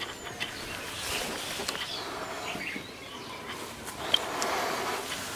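Small birds chirping, with light clicks and rustles of hands handling bamboo sticks and line, and one sharp tick about four seconds in.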